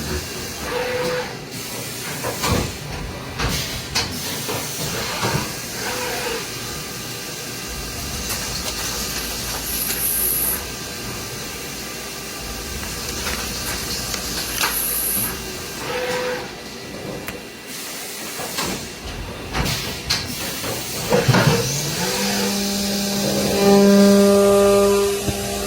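Haas VF-2SS CNC vertical machining center running through its cycle: steady hissing with scattered clicks and knocks, short whirs, and a strong steady motor whine with several overtones near the end.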